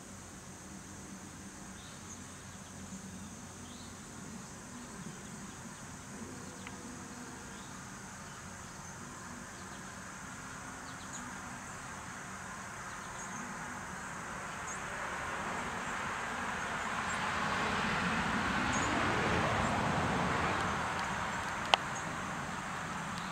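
Steady high-pitched chorus of insects such as crickets. In the second half a passing vehicle swells up and fades over several seconds, and a single sharp click comes near the end.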